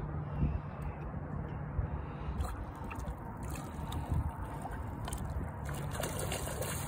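A large hooked fish thrashing and splashing at the surface of the water, in uneven splashes from about two seconds in, over a steady background hiss.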